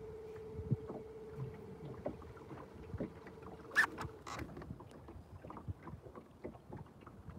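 Electric trolling motor humming steadily and cutting off about four seconds in, with small knocks and splashes of water against the bass boat's hull.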